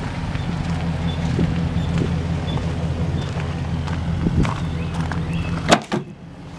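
A GMC Sierra 1500 pickup's engine idling steadily, with light crunching steps on gravel. Near the end a sharp latch click as the tailgate is opened, and the steady idle sound drops off.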